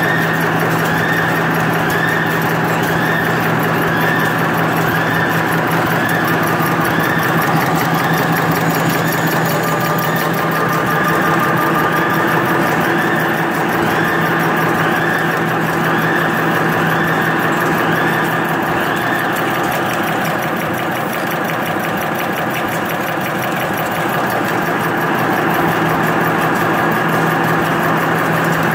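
Automatic napkin folding and packaging machine running: a steady mechanical hum with a sweeping sound that repeats about one and a half times a second with each machine cycle, the repeating sweep fading out about two-thirds of the way through.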